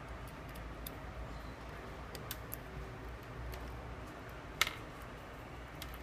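Small clicks and taps of a white earphone cable and plastic earbuds being handled on a desk, with one sharper click about four and a half seconds in, over a steady low hum.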